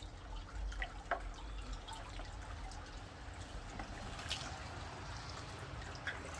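Water dripping and trickling into a small pond, with scattered faint ticks.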